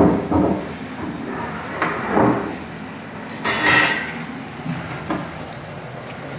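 Small shrink-wrap tunnel running with a steady whirr from its blower and roller conveyor, broken by a handful of knocks and clatters as a film-wrapped roll is set on the conveyor and carried through the curtain; the loudest knock comes right at the start.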